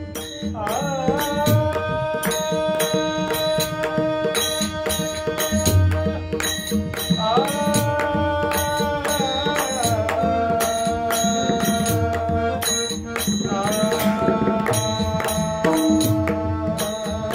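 Devotional bhajan singing: a male voice holds long, slowly bending notes in classical style. Pakhwaj drum strokes and evenly spaced small-cymbal strikes keep time under the voice.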